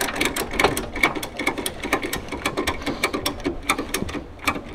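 Ratchet tie-down strap being cranked tight over a car's wheel on a transport trailer: a fast run of sharp ratchet clicks, several a second.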